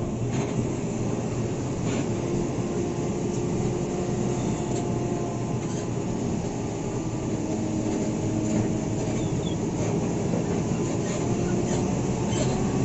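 Isuzu NQR medium bus's diesel engine running steadily under way, heard from inside the cabin over road rumble, its drone holding an even pitch.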